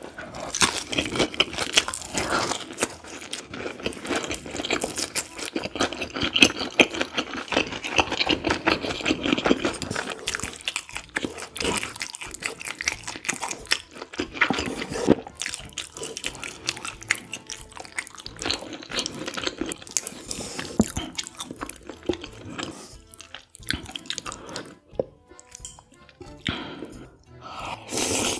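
Close-miked eating: crunchy bites and chewing of a crispy chive-and-oyster pancake, dense for the first ten seconds or so, then sparser chewing of noodles.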